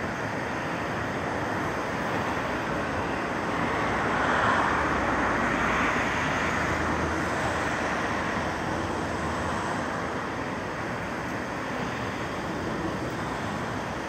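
Steady rush of river rapids, white water pouring over a rocky step in a wide, stony riverbed, swelling a little louder around the middle.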